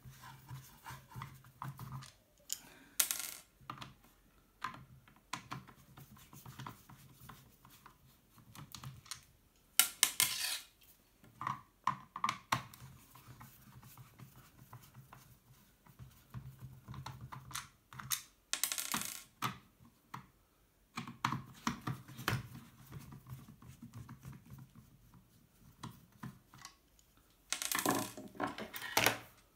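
A screwdriver clicking and scraping as small screws are turned out of a cordless drill's plastic clamshell housing. A few times a louder short rattle sounds as a loose screw is dropped onto the wooden table.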